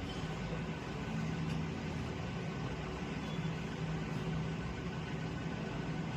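Steady low mechanical hum over an even background hiss, with no distinct knocks or clicks.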